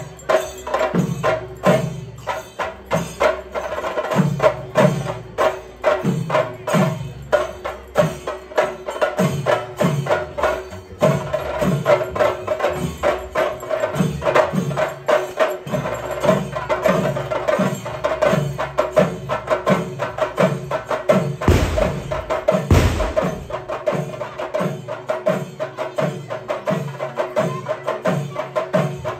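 Kerala temple ritual percussion: drums played in a fast, dense rhythm of sharp strokes, with deep strokes that drop in pitch about one and a half times a second and a steady tone held underneath. Two heavy thumps about a second apart come roughly three-quarters of the way through.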